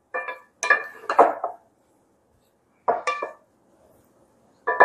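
Two wooden spoons tossing a salad in a glass bowl, knocking and clinking against the glass in short bursts with pauses between.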